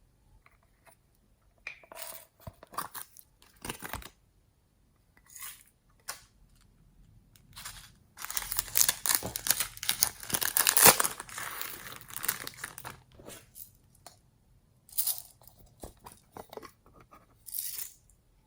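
Hands squishing and stretching slime: sticky crackles and pops in short spells, with a longer, louder run of crackling in the middle.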